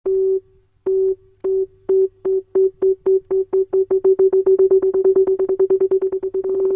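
Electronic beep on one steady pitch, repeating and speeding up steadily from slow separate beeps to a near-continuous tone near the end.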